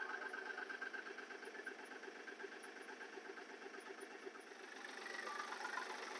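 Kioti DK6010SE tractor's diesel engine idling steadily at about 1,000 rpm, freshly started after its 50-hour engine and hydraulic oil change.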